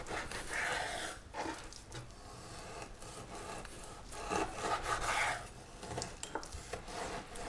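A kitchen knife cutting beef cheek into large pieces, the blade drawn through the meat in a few separate strokes.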